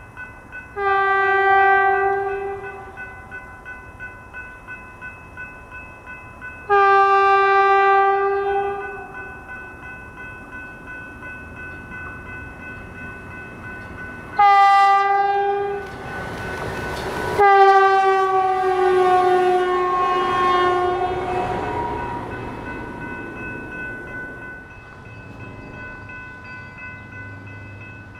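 Stadler FLIRT diesel multiple unit sounding its horn in the grade-crossing pattern as it approaches and passes: two long blasts, a short one and a final long one. A rush of noise comes as the railcar goes by close, and the last blast drops in pitch as the train moves away.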